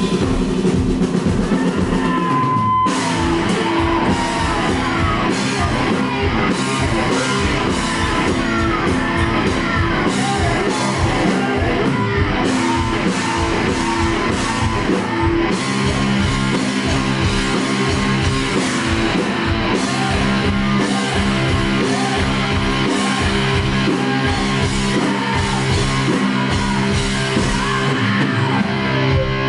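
Live rock band playing loudly: a held chord rings for about three seconds, then drums and electric guitar come in together, with a woman singing over them.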